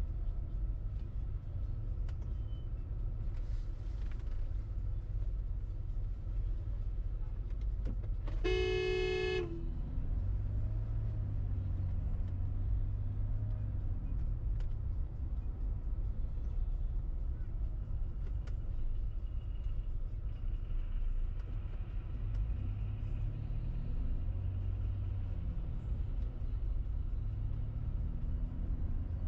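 Car driving in city traffic, with a steady low rumble of engine and road noise. A car horn honks once, for about a second, some nine seconds in.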